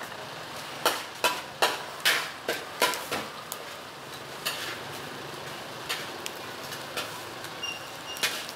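Banana leaves and newspaper crackling and rustling as they are folded around noodle portions: a dozen or so sharp crackles at uneven intervals over a steady background hiss.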